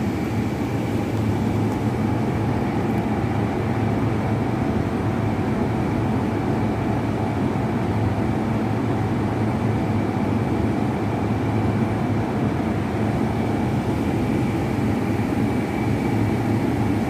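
Steady, unchanging drone of factory machinery: a low hum with a thin high tone held over it.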